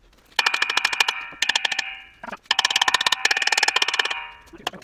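Rapid hammer blows on the lorry's front hub and brake drum assembly held under load in a hydraulic press, each strike ringing the heavy metal. They come in three bouts, the last and longest about two and a half seconds in, as percussion to shock the stuck hub loose from the drum.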